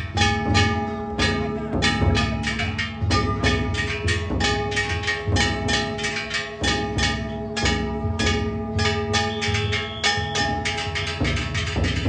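Ishidori festival float's percussion: a large taiko drum and kane gongs struck in a fast, unbroken clanging rhythm, the gongs' metallic tones ringing on over the deep drum beats.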